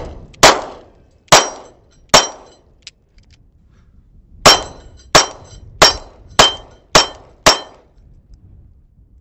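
Pistol shots from a 9mm Stoeger STR-9C and a Taurus Millennium: three shots about a second apart, then after a pause of about two seconds a faster string of six, roughly two a second. Several shots carry a brief metallic ring.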